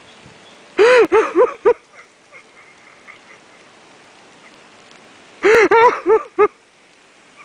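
A man's ecstatic wordless cries: two quick bursts of four or five high, wavering 'oh' sobs, about a second in and again at about five and a half seconds.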